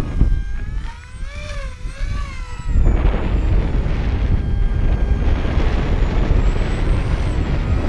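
Wind buffeting the microphone, with the whine of the XK A1200 glider's electric motor and propeller passing close by. About a second in the wind drops and the whine stands out for a couple of seconds, its pitch wavering up and down, before the wind rises again and covers it.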